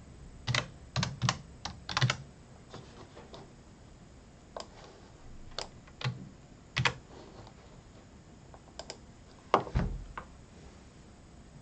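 Typing on a computer keyboard: a quick run of keystrokes in the first two seconds, then scattered single key presses, and a louder keystroke with a low thump near ten seconds.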